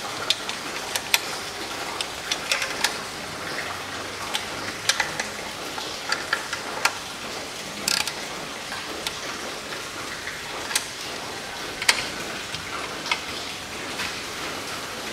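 Torque wrench ratcheting in short, irregular runs of clicks while tightening the CVT oil pan bolts to 8 N·m, going round the pan evenly.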